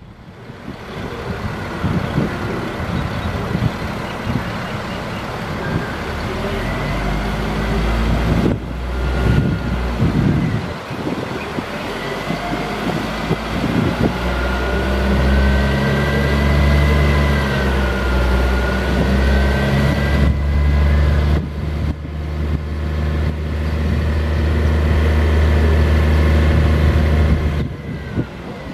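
Caterpillar 3126 inline-six diesel engine running steadily to drive the hydraulics of an Altec digger derrick, with a whine that rises and falls in pitch as the boom is swung and raised. The sound drops out briefly a few times.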